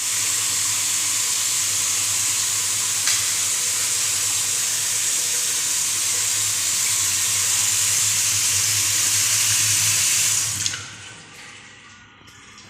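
Water running steadily from a wall-mounted sink mixer tap into the sink, then shut off about ten and a half seconds in, leaving faint trickling and drips.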